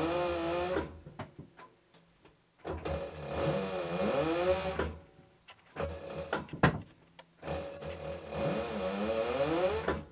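Aurora A-801 leather skiving machine running in three bursts of a few seconds each while a strip of leather is fed through its blade to split it. Its whine rises and falls in pitch within each burst. A sharp knock comes about six and a half seconds in.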